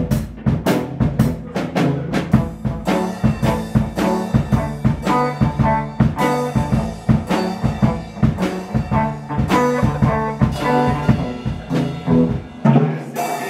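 Acoustic drum kit being played with sticks: a fast, uneven run of drum hits and cymbal crashes. Underneath runs a held, low pitched musical accompaniment that changes note and stops shortly before the end.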